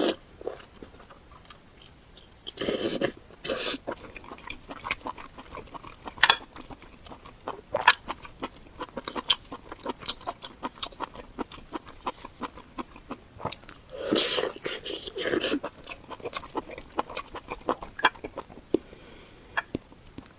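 Close-miked chewing and eating mouth sounds: many quick wet clicks, with two longer, louder stretches about three seconds in and around fourteen seconds.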